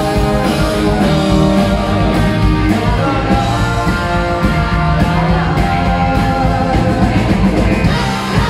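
Live rock band playing loudly, with singing over electric guitar, bass guitar, drums and keyboard.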